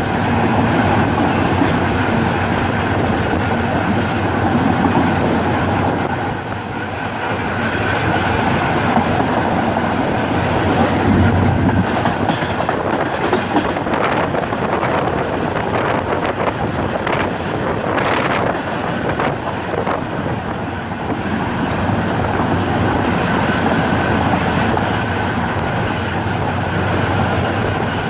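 Passenger train running along the track: a steady rumble with wheels clicking over rail joints, and a brief louder clatter about two thirds of the way through.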